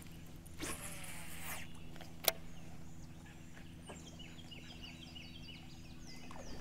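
A bird singing a rapid run of short, high, falling chirps in the second half, over a steady low hum. Earlier come a soft swish about a second in and one sharp click just after two seconds.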